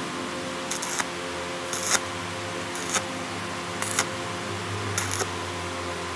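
Electric arc welder tack-welding a bracket in short crackling bursts, five of them about a second apart, over a steady electrical hum.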